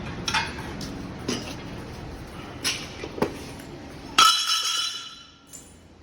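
Metal pieces clinking together: several light clinks, then a louder ringing clank about four seconds in that rings for about a second.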